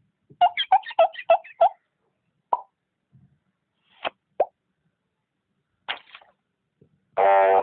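Cartoon-style plop sound effects: a quick run of about six pops, then a few single pops spaced out. Near the end comes a brief buzzy tone.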